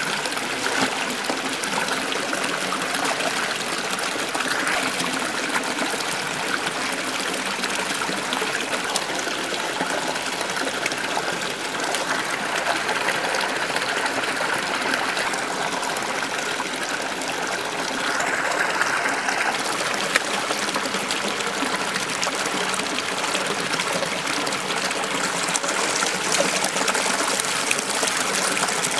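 Shallow rocky stream flowing over stones, a steady rush of running water.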